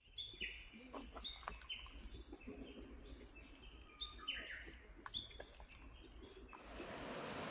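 Small birds chirping, many short high calls a few per second, over a low outdoor rumble. Near the end a steady rush of flowing water takes over.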